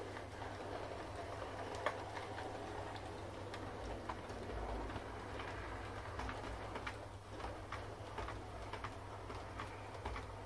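O gauge model railway train running past: a steady motor hum and rumble with scattered sharp clicks of wheels over the rail joints.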